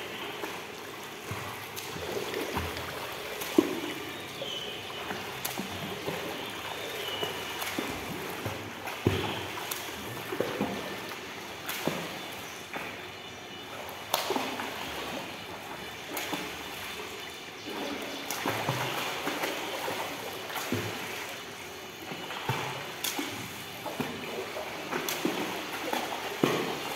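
Water splashing and sloshing as a child swims front crawl, arm strokes and kicking legs hitting the pool surface in an uneven run of splashes.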